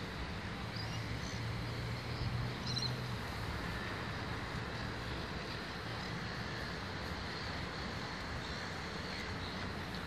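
Steady background rumble of distant city traffic and engines, with a few faint, short high bird calls in the first three seconds.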